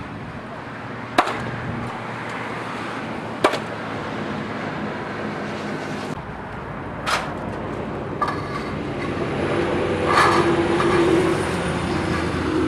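Carpentry on a wooden barge rafter: about four sharp knocks as the board is set against the purlin ends, then a cordless drill running steadily for a couple of seconds near the end.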